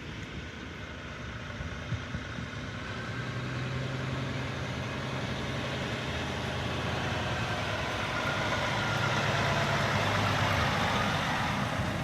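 A vehicle engine running steadily, its sound growing gradually louder.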